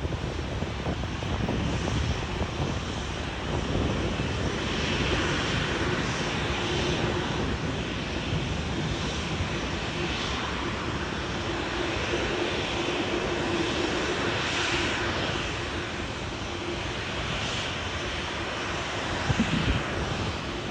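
Airliner jet engines running with a steady, even noise, a faint low hum coming through in the middle stretch.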